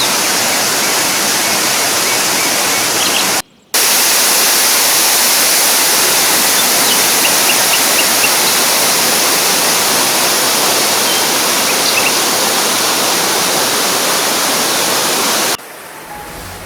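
Waterfall pouring: a loud, dense, steady rush of falling water. It cuts out for a moment about three and a half seconds in, then gives way near the end to quieter music.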